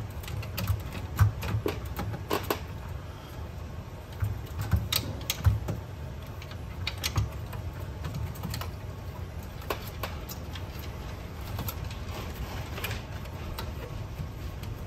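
Scattered clicks and knocks of the cassette deck's tape transport mechanism and chassis being handled and fitted back into place. The clicks are busiest in the first half and sparser later, over a low steady rumble.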